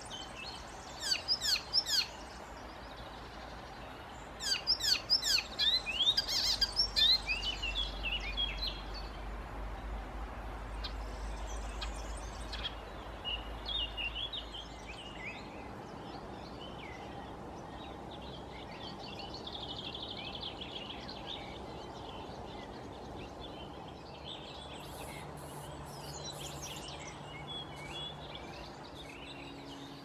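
Songbirds singing: a small warbler's fast, chattering song of rapid high notes, in bursts in the first half. Softer calls and snatches of song follow.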